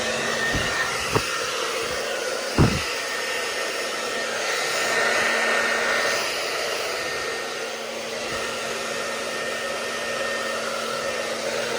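Handheld hair dryer blowing steadily, a rushing air noise with a low hum and a faint high whine. A few short thumps sound in the first three seconds, the loudest about two and a half seconds in.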